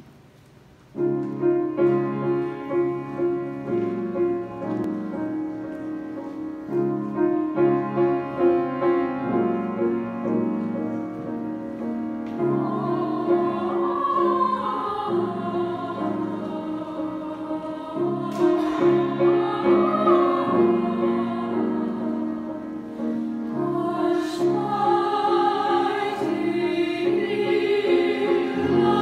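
Mixed choir of women's and men's voices singing in parts, entering about a second in with sustained chords over a steady pulsing figure in the lower voices.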